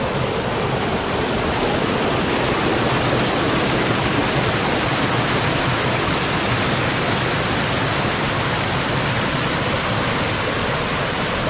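Creek water pouring over rocks in a small waterfall: a loud, steady rush with no break.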